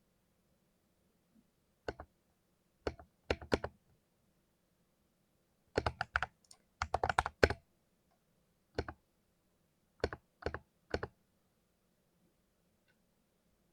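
Typing on a 60% keyboard: sharp keystrokes in short, irregular bursts, with the quickest run of about a dozen keys near the middle. The keys stop about three seconds before the end.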